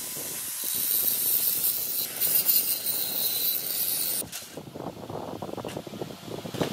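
Angle grinder grinding cutting burrs off a thick steel block, a steady high hiss that stops abruptly about four seconds in. Quieter handling noise and light knocks of the steel piece follow.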